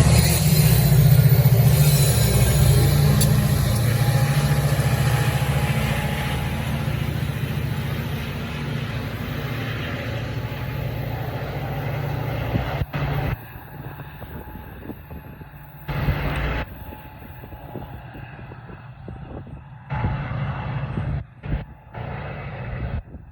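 Diesel drone of a Metra commuter train's locomotive, loud at first and fading steadily as the train moves away. About halfway through it drops away abruptly to a quieter outdoor background, with a few short louder stretches of noise.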